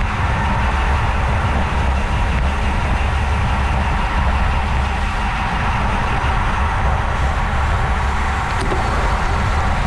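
Steady wind rush and buffeting on the microphone of a bike-mounted camera riding in a road race bunch at about 28 mph, with tyre and road noise underneath.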